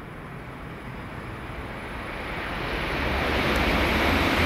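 A JR West 500 series Shinkansen approaching at speed on a non-stop run through the station. Its rushing running noise swells steadily louder through the second half.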